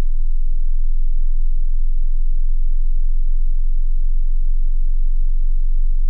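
A pure sine-wave test tone at about 21 to 24 Hz, stepping up in frequency. It sits at the bottom edge of human hearing and is more felt as a deep hum than heard as a pitch.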